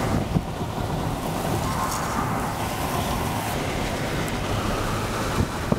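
Steady rushing of strong storm wind and road noise around a moving vehicle, heard from inside the cab.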